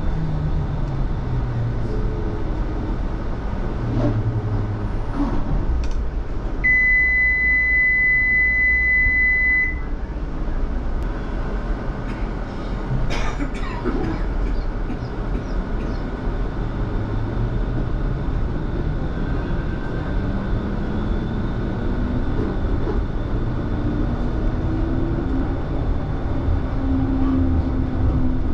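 Bombardier Flexity Freedom low-floor tram running, a steady rumble with a traction-motor whine that falls in pitch over the first few seconds as it slows. About seven seconds in, a steady electronic beep sounds for about three seconds. From about twenty seconds the whine rises again as the tram picks up speed.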